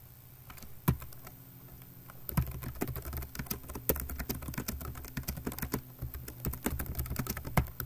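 Typing on a computer keyboard: a single click about a second in, then a quick, uneven run of keystrokes from about two seconds in.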